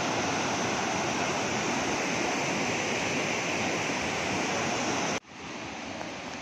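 River rapids rushing over boulders, a steady roar of white water. About five seconds in it cuts abruptly to a quieter, fainter rush.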